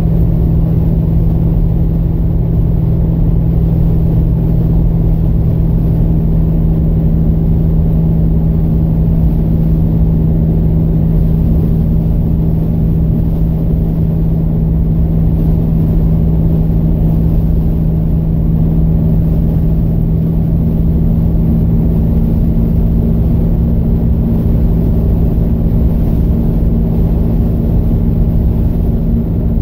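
Plymouth Scamp cruising at steady highway speed, heard from inside the cabin: a loud, even drone of engine and road noise with a strong constant hum that does not change in pitch.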